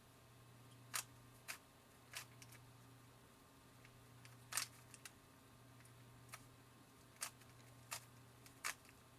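Sharp plastic clacks of a stock, unlubricated Rubik's Cube as its layers are turned by hand: several snaps at irregular intervals with short pauses between. The solver takes the clacking as a sign that it is not a very good cube.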